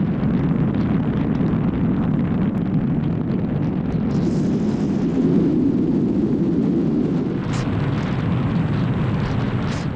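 Steady road and wind noise inside a vehicle driving at speed, a dense low rumble. Two short hissing swells come near the end.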